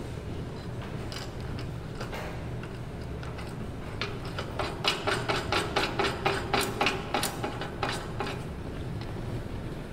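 A run of sharp metallic clicks and taps, a few a second, from about four seconds in until near the end, as a bobbin support is fastened through the sheet-metal top plate of a computerized flat knitting machine. A steady low hum runs underneath.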